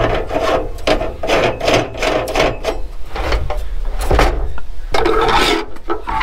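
Aluminium foil on a camp stove's top being pressed and smoothed down by hand around the burners: a run of rubbing, crinkling strokes, about three a second.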